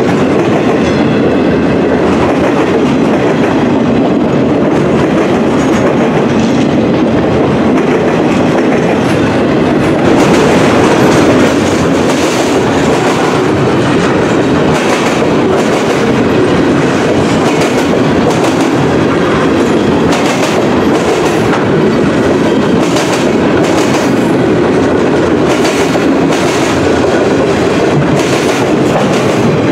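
Freight train's loaded flatcars rolling past close by: a steady rumble of steel wheels on rail, with a run of sharp clicks as the wheels cross rail joints through the second half.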